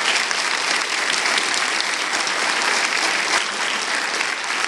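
Crowd of legislators and guests applauding steadily: a dense clatter of many hands clapping.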